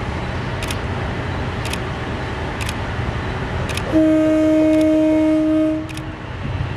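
Japanese-built Kiha 183 diesel railcar sounding its horn, one steady blast of about two seconds starting about four seconds in, over a steady low rumble.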